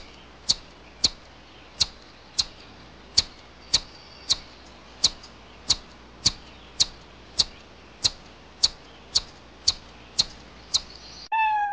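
A striped squirrel's chip call: short, sharp, high chirps repeated about twice a second over a faint hiss. Just before the end a drawn-out cat's meow cuts in.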